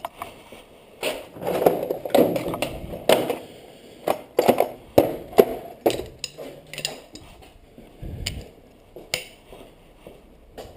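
Irregular metallic clanks and knocks of hand tools and metal car parts being handled, a dozen or more sharp strikes at uneven spacing.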